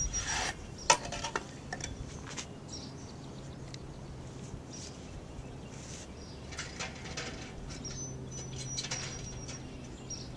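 Handling at the neck of a liquid nitrogen semen storage tank as a canister is lifted out: a few sharp clicks and knocks in the first second or so, then faint scrapes and rustles over a low steady hum, with a thin high squeak near the start and again about eight seconds in.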